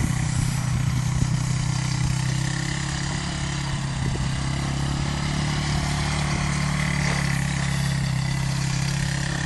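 ATV engine running steadily at an even speed, a constant low hum with no revving.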